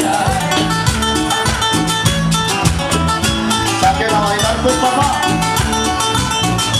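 Live band playing an upbeat Latin dance tune, instrumental with no singing, over a steady percussion beat.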